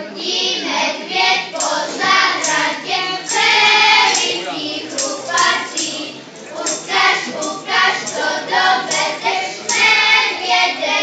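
A group of children singing together in phrases.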